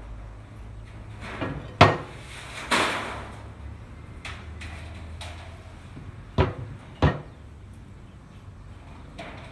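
Steel coupling parts knocking and clanking on a steel workbench as a flat bolt-holed coupling plate and a toothed drive gear are handled. There are four sharp clanks, the loudest about two seconds in, followed by one with a brief scraping rattle and two more a little past halfway, over a low steady hum.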